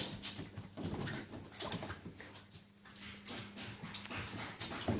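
Dog playing with squeaky toy blocks: a scattered run of short knocks and squeaks.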